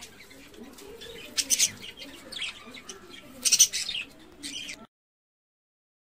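A caged flock of budgerigars chirping and chattering, with sharp high calls loudest about a second and a half in and again about three and a half seconds in. The sound cuts off abruptly a little before five seconds, followed by silence.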